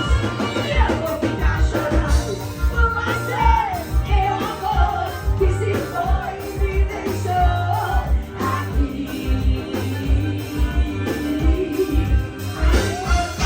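Live forró band music with singing over a steady kick-drum beat.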